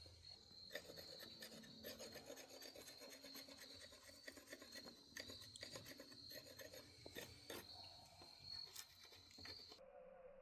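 Faint scraping and rubbing with many small clicks, over a faint steady high tone that stops shortly before the end.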